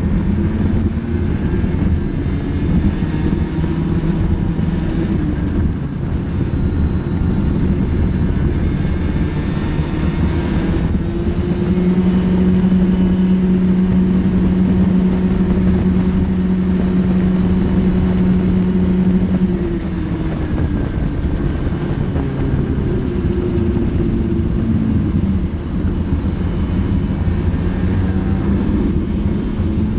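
Racing kart engine heard from the kart itself, revs rising and falling through the corners. It is held high and steady for about eight seconds on the straight, then drops sharply under braking and climbs again on the exit.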